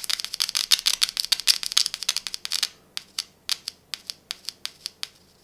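Bare headphone driver crackling and clicking on 9-volt battery leads as the contact makes and breaks: a rapid crackle for about two and a half seconds, then slower single clicks that die away about five seconds in.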